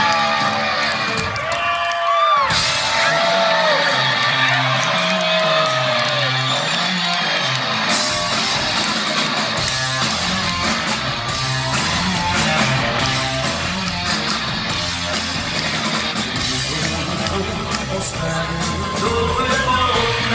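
Live hard rock band playing through a club PA: a male lead singer's long sliding notes over electric guitar, bass and drums in the first several seconds, then the band playing on with a repeating bass line.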